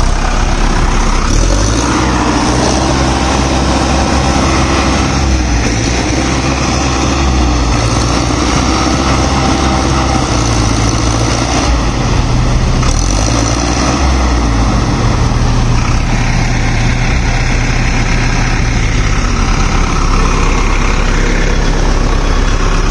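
Sonalika DI 750 tractor's diesel engine running hard under load as it tries to pull free while stuck in deep mud, with a second tractor towing it by rope. The engine sound is loud and steady, its pitch dipping and rising a few times.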